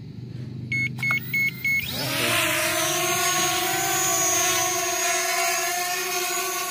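Four short beeps, then a JJRC X12 Aurora quadcopter's brushless motors spin up with a rising whine about two seconds in as it auto-takes off. The motors then settle into a steady propeller hum while it hovers.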